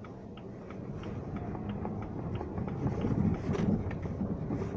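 Road and engine noise inside the cabin of a moving JAC S5 with a turbocharged engine, a steady low rumble that grows louder about three seconds in, with a light regular ticking about three times a second.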